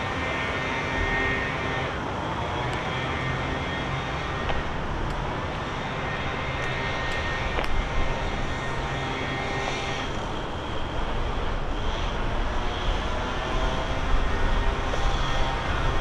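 Steady city traffic rumble, growing louder and more uneven about ten seconds in.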